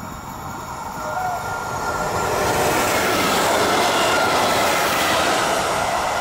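Regional electric multiple unit passing close at speed: a rush of wheel and rail noise that swells about a second in and stays loud, with a faint high whine running through it.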